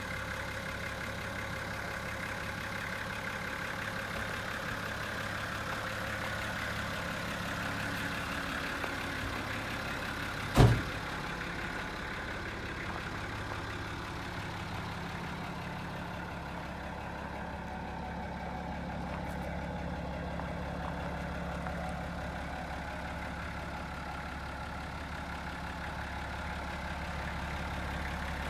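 Isuzu Journey minibus's Nissan TD42 4.2-litre inline-six diesel engine idling steadily. One sharp knock about ten seconds in.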